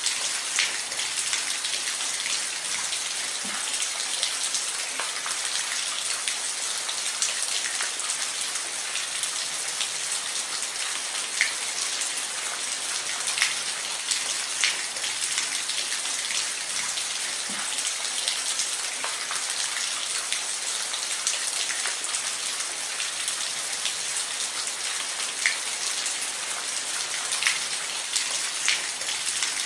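Steady rain falling on a roof: an even hiss with scattered sharper taps of single drops.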